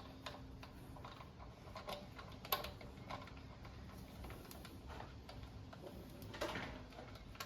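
Ratchet ticking faintly as the front brake caliper bolts are screwed in, with a sharper metal click about two and a half seconds in and a louder clatter near the end.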